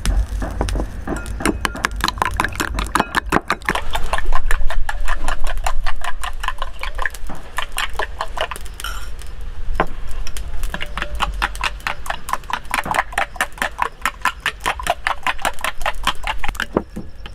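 Metal spoon beating duck eggs in a glass bowl: rapid, even clinking of the spoon against the glass, several strikes a second, with a brief pause a little after halfway.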